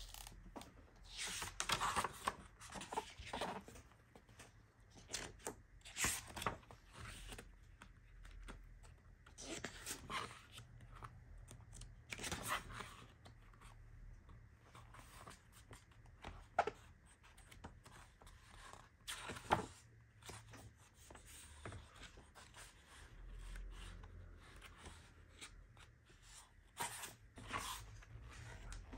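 Pages of a paper planner being turned by hand, each turn a short rustle and flap of paper, coming irregularly every few seconds.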